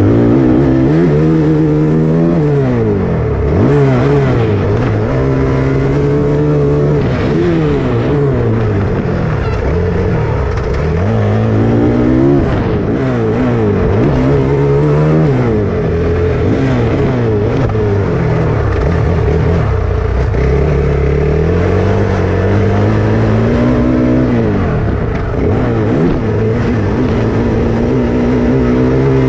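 Dirt bike engine revving up and down again and again, its pitch climbing and dropping every second or two as the throttle opens and closes.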